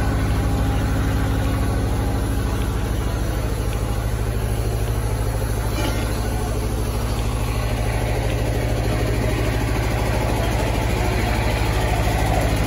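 Borewell drilling rig's diesel engine running steadily at constant speed, a low, even drone.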